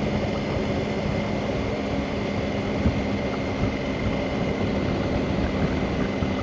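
Motorcycle engine running at a steady cruise, a constant hum, with rushing wind and road noise over the bike-mounted action camera's microphone.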